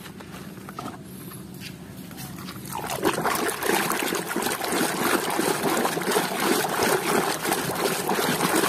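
A hand swishing and scrubbing in a tub of foamy soapy water, washing mud off plastic toys. The sloshing and splashing starts about three seconds in and goes on steadily.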